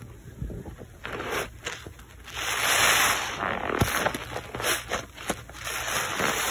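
Rubber-gloved hands squeezing and squishing thick soap lather, making wet squelching and crackling foam sounds in irregular bursts. The longest and loudest squeeze comes about halfway through.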